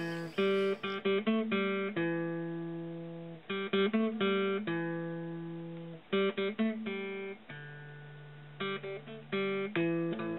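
Background music played on acoustic guitar: picked notes and chords in short phrases, with several chords left ringing and slowly fading.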